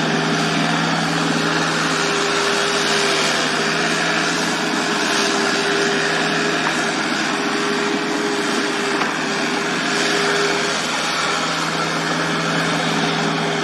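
Komatsu mini excavator's diesel engine running at a steady speed while the machine works its arm and bucket, a constant drone with a steady hum through it.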